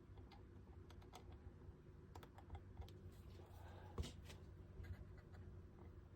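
Faint, scattered light clicks and taps of small model parts being handled and fitted, with one sharper tap about four seconds in, over a low steady hum.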